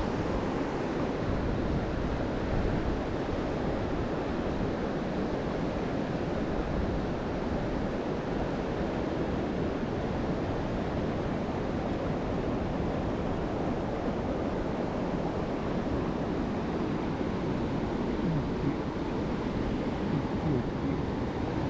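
Mountain stream water rushing steadily over rocks, a constant deep roar.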